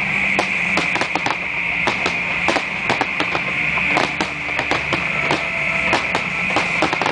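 Fireworks display: aerial shells bursting in a rapid, irregular barrage of bangs and pops over a constant crackle, with music playing underneath.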